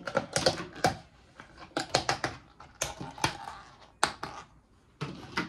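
Snap-on plastic lids being pried off takeout food containers: clusters of sharp plastic clicks and crackles with short pauses between them.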